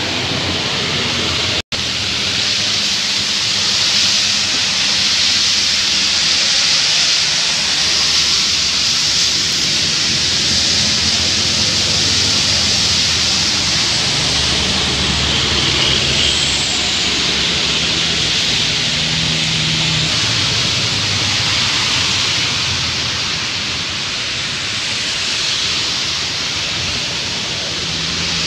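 Heavy rain and tyre spray hissing on a wet road, with the engines of passing coaches and other traffic rising and falling underneath. The sound cuts out for an instant a couple of seconds in.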